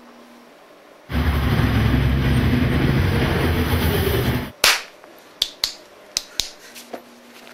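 Busy city street noise, dense traffic and crowd din, for about three seconds, cutting off abruptly; then a loud sharp crack followed by a quick series of about six sharp clicks.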